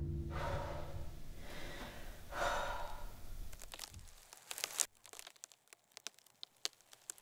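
A woman breathing heavily, two long breaths about two seconds apart, over the fading low rumble of a boom. Then near quiet with a few scattered small clicks.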